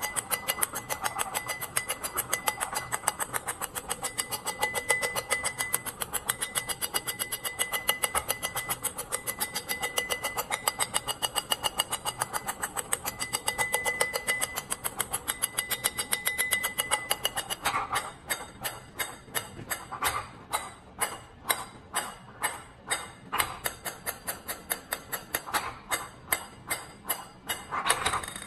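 Ping pong ball bouncing again and again on the plastic platform of a servo-driven ball-balancing robot: a quick run of light ticks, several a second, over a steady high whine. About 18 seconds in the whine stops and the ticks come more slowly and stand apart.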